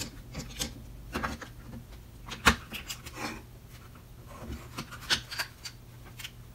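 Scattered small clicks and knocks of plastic cordless-drill parts being handled and pressed together as the trigger switch is worked into the housing, the sharpest click about two and a half seconds in.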